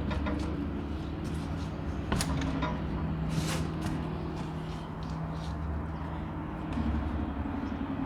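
A steady low hum with a few short clicks, and a brief hiss about three and a half seconds in.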